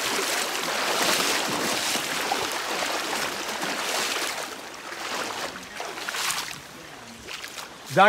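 Shallow muddy floodwater rushing steadily over a path where the stream's flow is strong, louder in the first half and quieter after about four seconds.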